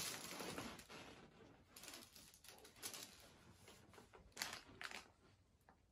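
Near silence in a small room, with a few faint, scattered clicks and rustles.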